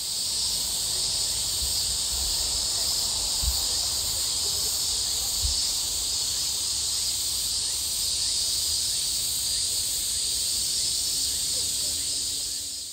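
Steady, high-pitched chorus of insects singing in a field, unbroken throughout, with a faint low rumble and two soft low thumps a few seconds in.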